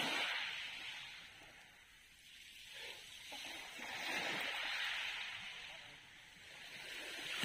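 Small waves washing onto a gravel beach: a hiss that swells and fades, once at the start and again about four seconds in.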